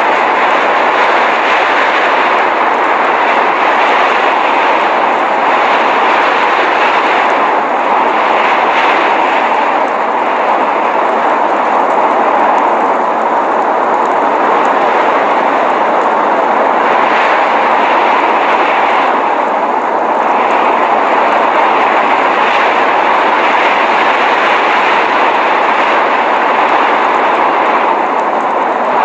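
Blizzard wind blowing steadily: a dense, even rush of noise that eases slightly now and then.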